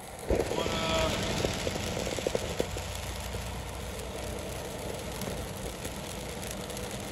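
Steady road noise inside a moving car: the engine running and tyres hissing on a wet road. A few light knocks come about a second in.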